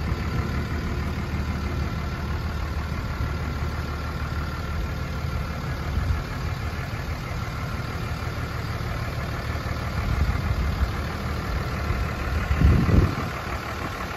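2003 Dodge Ram 2500's HO 5.9L 24-valve Cummins inline-six turbo-diesel idling steadily. A short low rumble rises and falls near the end.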